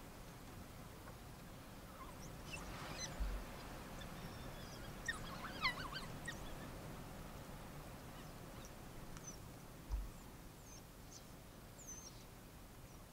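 African wild dogs giving short, high-pitched twittering squeaks: a cluster of chirps in the middle and a few more near the end. Two dull low thumps also sound, one early on and one near the end.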